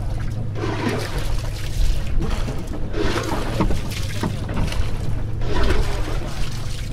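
Water splashing and sloshing against a small fishing boat at sea, in surges every second or two over a steady low hum.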